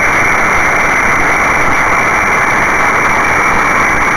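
Spitfire Mk.IX's Rolls-Royce Merlin V12 engine running steadily in flight, heard from inside the cockpit as an even, unbroken drone mixed with airflow.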